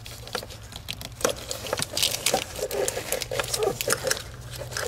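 Irregular small clicks, scrapes and glove rustling as a small hand tool levers a line connector loose at the engine's intake manifold, over a low steady hum.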